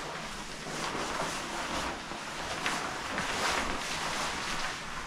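Rustling and swishing of a waterproof jacket's shell fabric as it is pulled on and the arms pushed into the sleeves, with several louder swishes a second or so apart.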